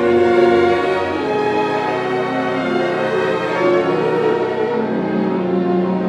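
Symphony orchestra playing a passage of a cello concerto in a live concert recording, strings holding sustained notes at a steady, fairly loud level.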